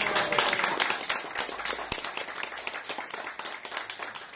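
Audience applauding, loud at first and gradually thinning out and fading.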